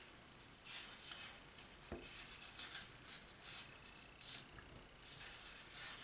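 550 paracord being handled while a snake knot is tied: faint, soft rustling and brushing as the cord is wrapped and drawn through the loop, with a small click about two seconds in.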